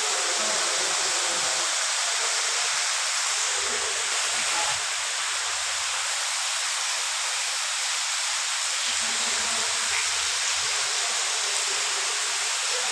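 Steady rush of flowing floodwater and heavy rain, an even noise that does not change.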